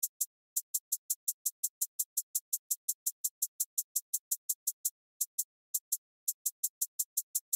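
Hip-hop beat stripped down to a drum-machine hi-hat ticking on its own, about five quick ticks a second, with a couple of short breaks in the pattern.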